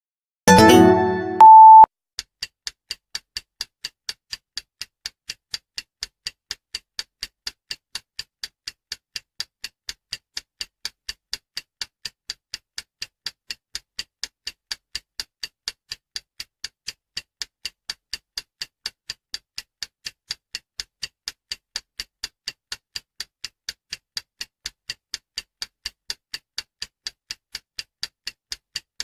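Clock-ticking sound effect for a countdown timer: steady, evenly spaced ticks. It is preceded by a brief electronic jingle that ends in a loud held beep about a second and a half in.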